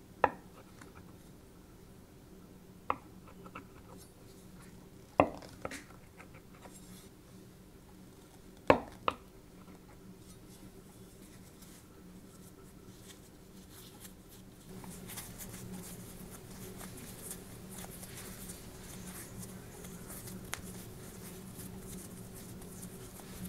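A cleaver cutting through bread dough, its blade knocking sharply on the countertop about four times over the first nine seconds. From about fifteen seconds in, the soft, steady rustle of hands folding and pinching floured dough into a ball.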